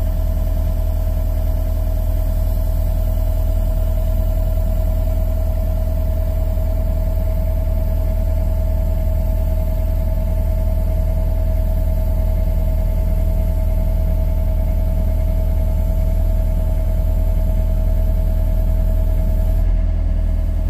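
John Deere mini excavator's diesel engine running steadily under the operator's cab, with a steady whine over the low engine sound, while the boom lifts a load on its forks.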